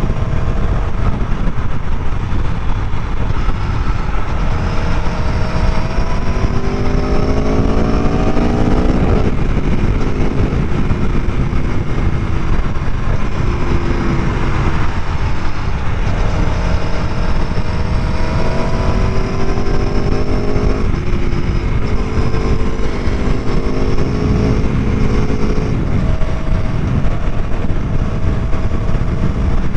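Aprilia Tuono V4 1100 Factory's V4 engine pulling through the gears. Its pitch climbs and then drops sharply at each clutchless quickshifter upshift, several times over, above a steady low rumble of wind noise.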